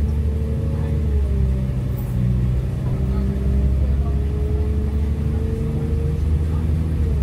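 Translink diesel multiple-unit train heard from inside the carriage while moving: a steady low rumble with an engine tone that rises slowly in pitch and drops back a little before the end.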